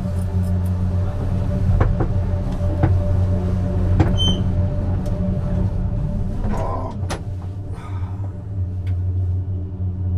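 Detachable gondola cabin rolling through the lift station on its conveyor tyres: a steady low machinery hum with scattered clicks and knocks from the rollers and rails, and a short high squeak about four seconds in.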